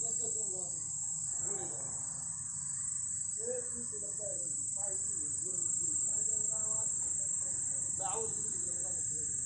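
Crickets chirring at night in one steady, unbroken high-pitched drone, with a faint murmur of voices underneath.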